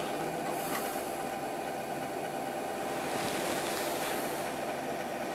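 Computer cooling fans (CPU cooler and power supply) running steadily on a powered-up bare motherboard, an even whoosh with a steady mid-pitched whine over it.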